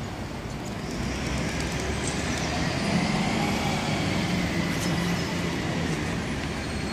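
City road traffic around a square, with one heavy vehicle's engine hum swelling about a second in and easing off near the end.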